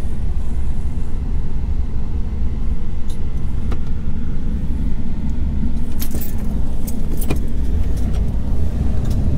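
RV engine and drivetrain running at low speed as it manoeuvres, a steady low rumble heard from inside the cab. A few sharp clicks and light rattles come through about midway.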